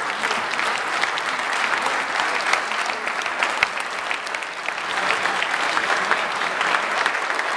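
A roomful of people applauding: sustained, dense clapping that keeps going at a steady level.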